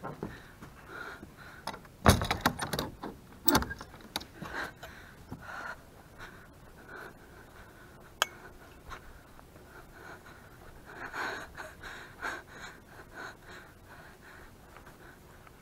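A person's quick breathing, short gasping breaths repeating about once or twice a second. A loud clatter comes about two seconds in and another about a second and a half later, and a single sharp click about eight seconds in.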